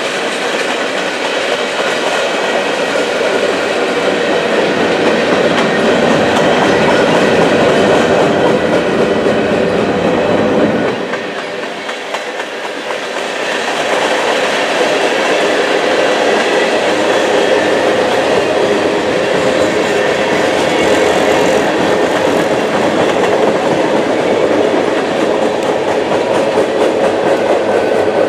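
Freight train cars rolling past close by: a loud, steady rumble and rattle of steel wheels on the rails, which eases off for a couple of seconds about eleven seconds in and then builds again.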